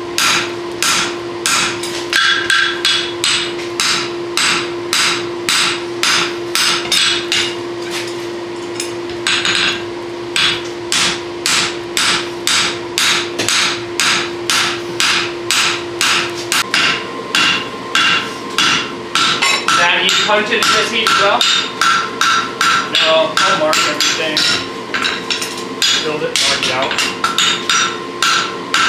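Hammer blows on a red-hot steel draft horseshoe held on an anvil, struck in a steady rhythm of about three a second. A steady hum underneath stops about two-thirds of the way through.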